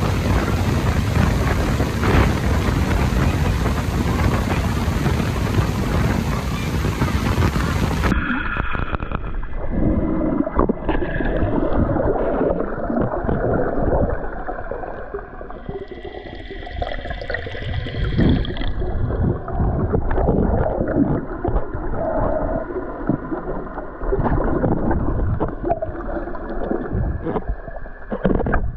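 Wind buffeting the microphone over the rush of water from a boat running at speed. About eight seconds in it cuts abruptly to muffled underwater sound: gurgling and bubbling with scattered clicks and knocks.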